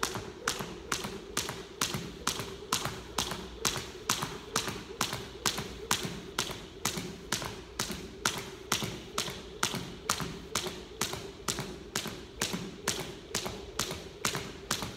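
Half-pound weighted jump rope slapping a hardwood floor on every turn, together with the jumper's shoes landing, in an even rhythm of about three strikes a second over a steady low hum.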